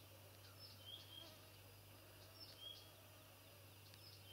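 Near silence in a still field: the faint whine of mosquitoes around the microphone, with short high chirps every second or so over a low steady hum.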